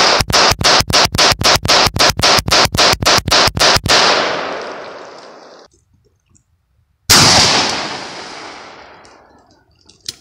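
A semi-automatic pistol fired as fast as the trigger allows in a mag dump, about five shots a second for about four seconds, with echo rolling away after the last shot. About seven seconds in, a single shotgun blast from a dragon's breath incendiary shell, with a long fading echo.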